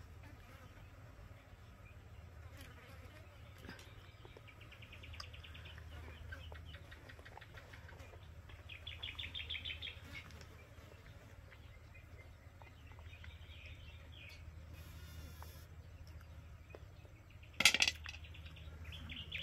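Insects buzzing, with short rapid trills that come and go several times over a quiet steady hum, scattered faint clicks, and one loud sharp click near the end.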